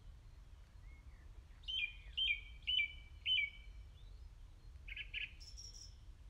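A small songbird singing: four similar clear chirps about half a second apart, then a quicker cluster of notes and a higher note near the end, over a faint low rumble.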